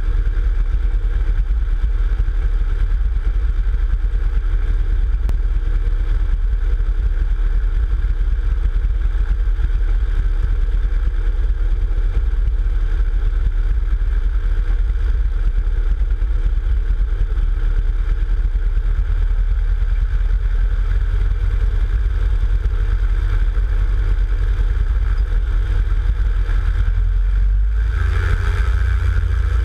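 American Champion Scout bush plane's piston engine idling steadily, with a constant drone. Its note picks up about two seconds before the end, as if power is added to start taxiing.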